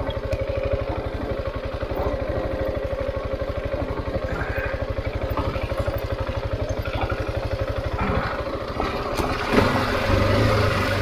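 Husqvarna 701's single-cylinder engine running at low revs with an even, slow beat. About nine seconds in there is a knock, and the engine picks up to a higher, steadier drone.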